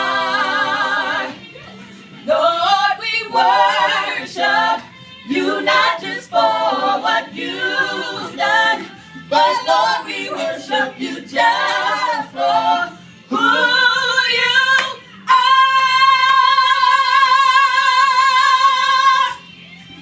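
Gospel worship singing: a voice sings a run of short, bending phrases, then holds one long high note with vibrato for about four seconds before it cuts off near the end.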